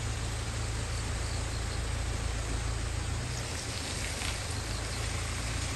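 Steady outdoor background: an even hiss over a low, constant hum, with faint insect calls high above it.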